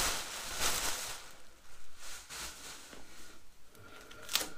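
Clear plastic packaging bag rustling and crinkling as it is handled, loudest in the first second and then a few fainter crinkles. A single sharp click near the end as the keys at the tool cart's drawer lock are handled.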